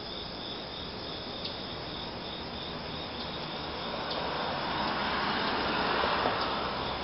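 Insects trilling steadily at a high pitch. A broad rushing noise swells up from about four seconds in.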